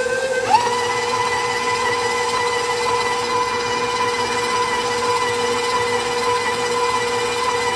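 Electric stand mixer motor running with its dough hook kneading dough, a steady whine. About half a second in, the whine rises in pitch as the speed is raised, then it holds steady.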